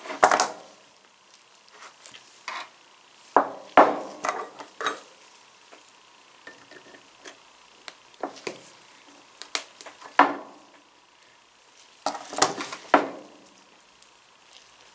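Small steel ratchet parts and hand tools clicking and clinking against each other while a vintage Craftsman ratchet is worked back together. The sharp knocks come in irregular clusters, about a second in, between three and five seconds in, around ten seconds and around twelve to thirteen seconds.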